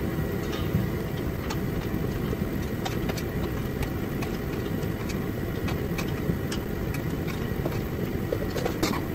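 Steady low background rumble like a running machine, with scattered short metallic clicks and clinks of a wrench working the bumper mounting bolts.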